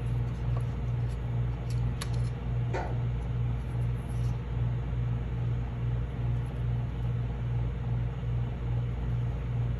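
A steady low hum with a slight even pulsing, and a few faint taps about two and three seconds in.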